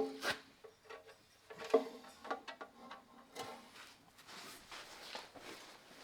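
Metal parts and tools being handled during hand repair work: a sharp clank with a short metallic ring at the start, another just under two seconds in, then lighter clicks and scrapes.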